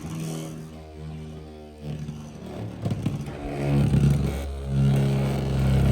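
A Beyblade X spinning top whirring in its stadium, a steady low hum that grows louder after about three and a half seconds.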